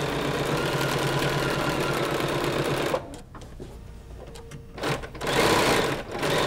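Sewing machine running a straight stitch, thread-sketching the outline of a fabric appliqué; it stops about three seconds in and runs again briefly near the end.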